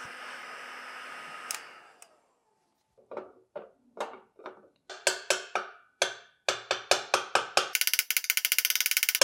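A steady hiss from the tool heating a seized aluminium exhaust nut on a BMW R80 airhead cuts off with a click after about a second and a half. After a short pause, a hammer strikes the exhaust-nut wrench in a string of sharp, ringing knocks that come faster and faster and end in a rapid flurry: hammering to break the stuck nut loose, which still does not move.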